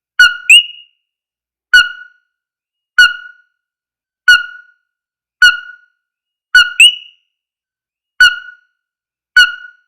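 Ringtone built on the call of the coquí frog: a short, sharp 'co' note repeats about every 1.2 seconds, and twice it is followed by the rising 'quí' note.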